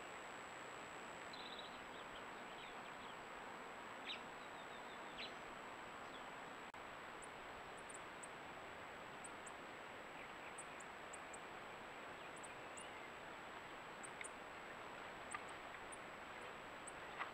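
Trail-camera outdoor ambience: a steady hiss with a constant high whine. Faint bird chirps come in the first few seconds, and short high chirps repeat through the second half, with a couple of small ticks between them.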